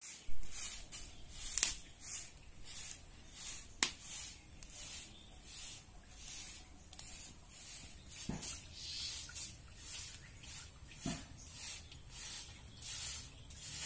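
A short-handled stick broom sweeping a concrete yard: rhythmic scratchy swishes, about one and a half strokes a second, with a few sharp clicks in the first four seconds.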